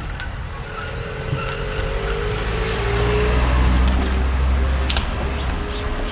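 A motor vehicle passing by: a low engine and road rumble swells to its loudest a little past the middle and then eases off. A single sharp click about five seconds in.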